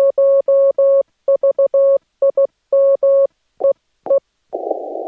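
Morse code keyed on a Yaesu FT-891 HF transceiver's CW sidetone: a single steady mid-pitched beep sent in dots and dashes, with dead-silent gaps between them while it transmits. Near the end it drops back to receive and a steady narrow-filtered band hiss takes over.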